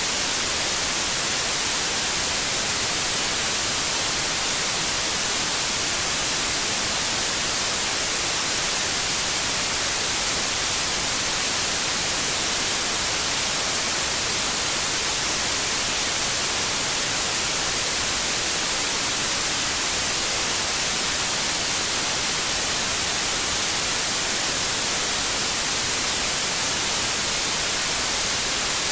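Steady white noise: an even, unchanging hiss, brightest in the high range.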